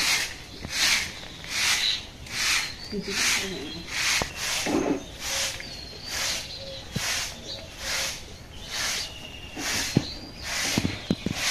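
Short-handled fibre broom sweeping a packed-earth yard in steady rhythmic swishes, about one stroke every three-quarters of a second.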